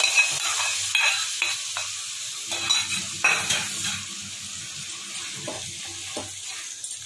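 Grated bottle gourd halwa sizzling in ghee in a steel kadhai while roasted nuts are tipped in from a small metal pan and stirred through with a silicone spatula. A few sharp metal knocks and scrapes come in the first half, and the sizzle gets quieter in the second half.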